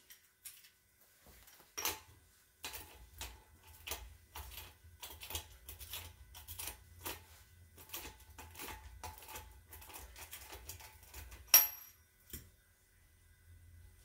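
Repeated metallic clicking, about two to three clicks a second, from a wrench working the pinion nut off a Ford M86 diff's pinion flange. It ends in a loud, sharp metallic clink that rings briefly, then one softer click.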